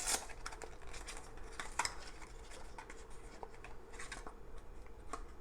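Small cardboard medication box being opened and handled: scattered light clicks and soft rustles of packaging.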